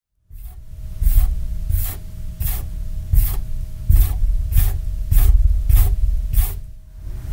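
Scottish Fold cat clawing at a fusuma (paper-covered sliding door), about ten even scratching strokes roughly one and a half a second, over a steady low rumble. The cat is scratching to have the door opened.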